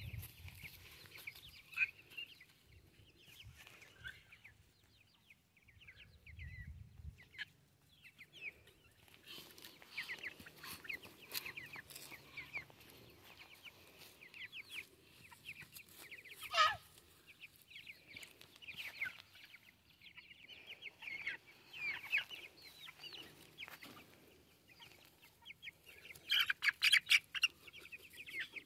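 A flock of young white chickens peeping and cheeping steadily in short, high calls, with one louder call sliding downward about halfway through and busier, louder peeping near the end.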